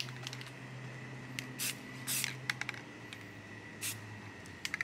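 Aerosol spray-paint can sprayed in a series of short hissing bursts, some brief taps and some a little longer, laying camouflage paint on a rifle through netting.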